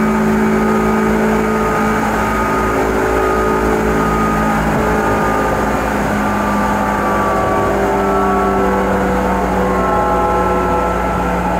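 Seibu 10000 series electric limited-express train running, heard from inside the car: a steady running rumble with several whining tones from the motors and gears that shift in pitch.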